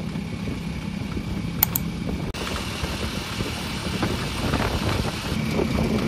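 A steady motor hum under a rushing background noise, with two quick clicks about one and a half seconds in and a momentary cut-out a little later.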